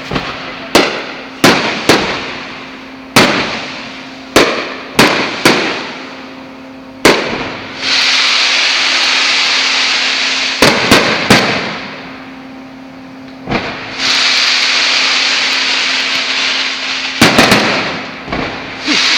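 Fireworks going off: a quick run of sharp bangs, each dying away in under a second. Then come two stretches of several seconds of steady loud hissing crackle, broken by more bangs.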